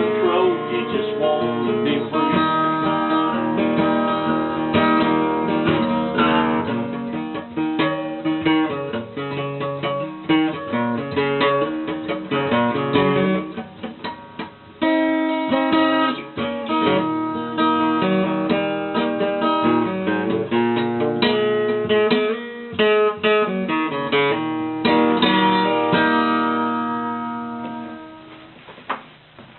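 Acoustic guitar playing a blues instrumental, strummed chords mixed with picked single notes, fading out near the end.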